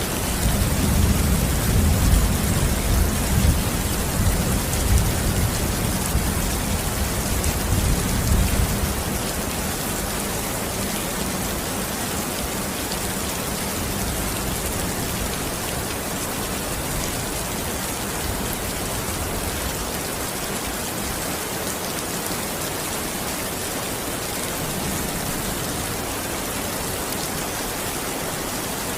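Heavy rain falling steadily, a dense even hiss. For the first nine seconds or so a low, uneven rumble sits under the rain, then fades out.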